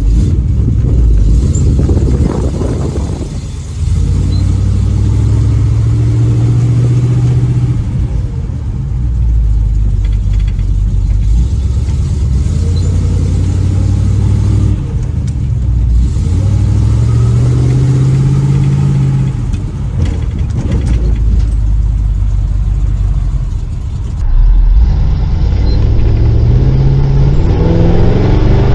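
Small-block Chevy 350 V8 with a freshly fitted exhaust, accelerating through the gears. The engine note climbs and drops back five or so times as it shifts up, heard from inside the car.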